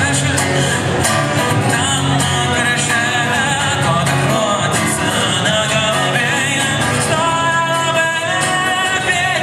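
A band playing a song: a singer's voice over guitar and a steady rhythm section.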